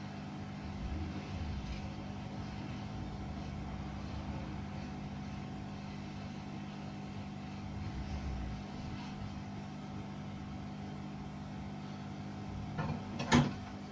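Faint steady low hum with a low rumble beneath it. There is a short sharp sound near the end.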